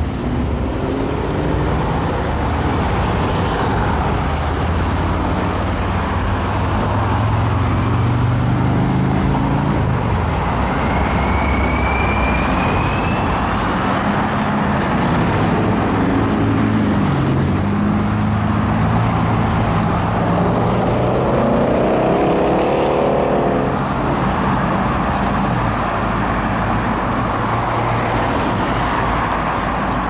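Road traffic: cars, SUVs and vans driving past, their engines and tyres making a steady rush. About 21 seconds in, one engine's pitch rises.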